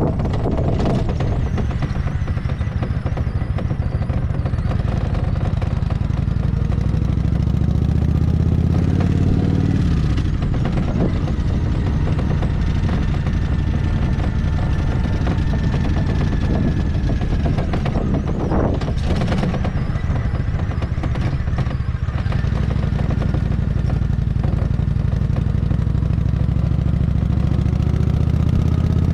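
Kawasaki Vulcan 900's V-twin engine running as the motorcycle cruises at low speed. The engine note eases off around ten seconds in and picks up again a little after twenty seconds, with a brief rush of noise shortly before that.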